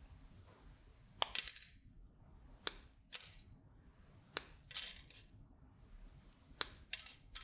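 Side cutters snipping through a paper-taped strip of axial resistors: sharp snips in pairs about every second and a half, several followed by a short crisp rustle of the tape.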